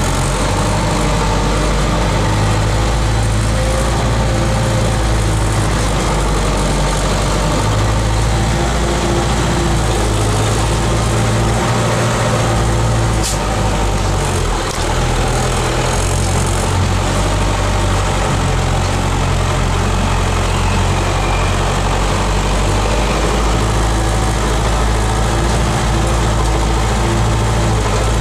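Unimog engine running steadily, heard from inside the cab as the truck crawls over a rutted dirt track.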